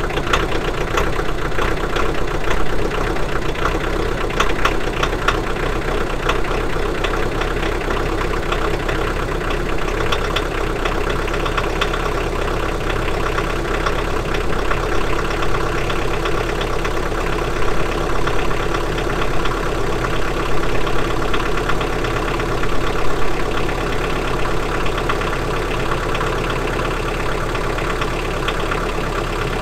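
Three-cylinder diesel tractor engine idling steadily, cold, just after a hard start, which the owner puts down to failed glow plugs. There is a continuous knocking clatter, a little rougher in the first few seconds.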